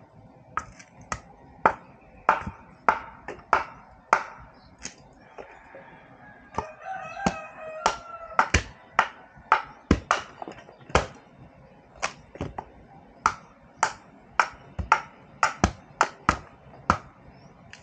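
A machete chopping bamboo: an irregular run of sharp chops, roughly two a second. A rooster crows once, about seven seconds in.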